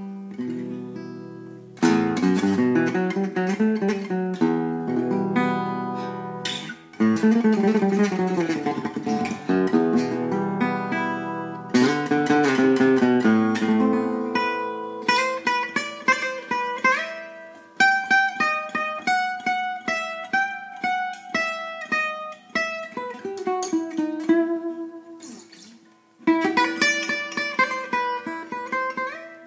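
Old gypsy-jazz acoustic guitar played solo in a free improvisation: full strummed chords about 2, 7 and 12 seconds in and again near the end, with plucked single-note melody lines between them.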